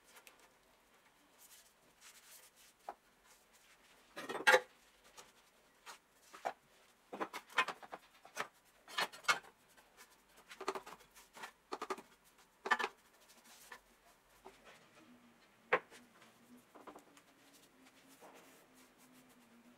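Brush scrubbing wet, rusty steel parts of a cut-off saw (blade guard, then base plate): irregular short scratchy strokes, busiest in the middle.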